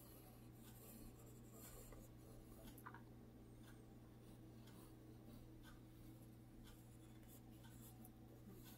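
Faint scratching of a pencil tracing shapes on a sheet of paper, over a low steady hum.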